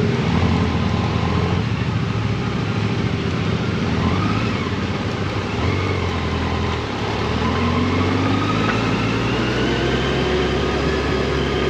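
Motorcycle engine running steadily under way, with wind noise. Its pitch dips about seven seconds in, then climbs as it speeds up.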